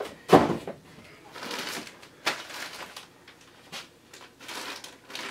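Plastic packaging being handled as an item is pulled from a plastic storage tote and its bag opened: a thump about a third of a second in, then scattered rustling and light clicks.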